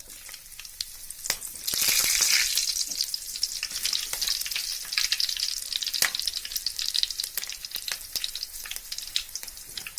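Green chilli and dried red chilli dropped into hot oil with spluttered fennel seeds in a kadai. The sizzling swells loudest about two seconds in, then settles into a steady sizzle with frequent crackling pops.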